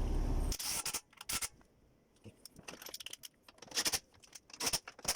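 Metal clinks, clicks and short scrapes of hand tools and bolts at work, as an engine mount is being fitted, in scattered bursts. A steady background noise cuts off abruptly about half a second in.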